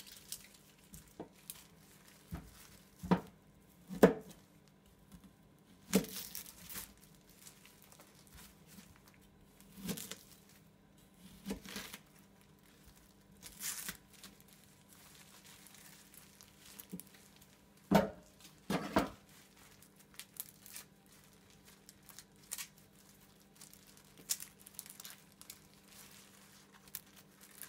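Papery onion skin being torn and peeled off a halved onion by hand, crinkling, with scattered sharp knocks of a kitchen knife on a plastic cutting board.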